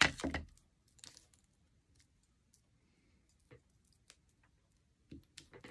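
Light plastic clicks and taps of clear acrylic stamping blocks and a photopolymer stamp being handled on a craft table, scattered and faint, with a louder clack right at the start.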